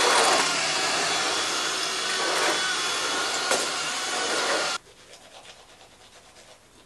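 Cordless stick vacuum cleaner running steadily with a motor whine, then cutting off suddenly about five seconds in. Only faint room sound follows.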